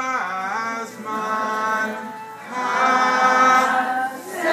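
A group of voices singing a Hanukkah song together, in long held notes with brief breaks between the phrases.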